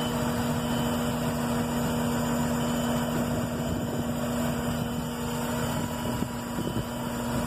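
An engine idling steadily, a constant low hum with a rough rumble beneath it.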